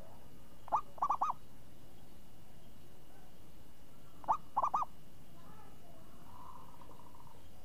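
Zebra dove (perkutut) cooing: two song phrases about three and a half seconds apart, each a single note followed by three quick notes, then a softer trilling coo near the end.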